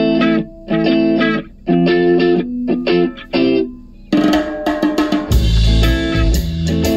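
Rock music: an electric guitar plays short, stop-start chord stabs with gaps between them. About four seconds in, the full band comes in with drums and bass.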